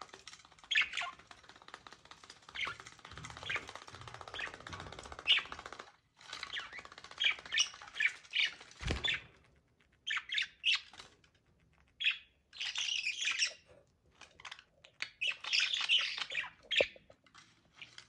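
Budgerigars chattering: a dense run of rapid chirps, squawky notes and warbling, with one short thump about halfway through.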